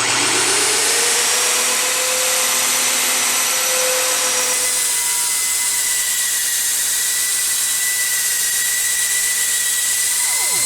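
Electric belt sander, mounted upside down in a jig as a bench belt grinder, switched on: its motor comes up to speed over the first second or two with a rising whine, then runs on steadily with a loud, hissing belt.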